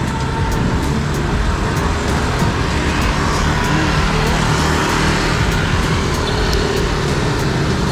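Steady city street traffic noise heard while riding a bicycle along the road, with motorcycle engines running close by.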